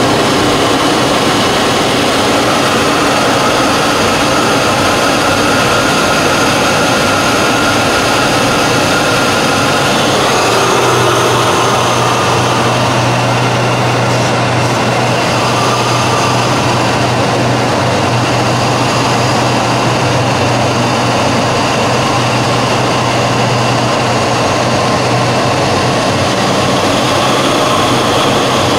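Steady aircraft engine drone heard from inside the cabin in flight, with a steady low hum setting in about ten seconds in.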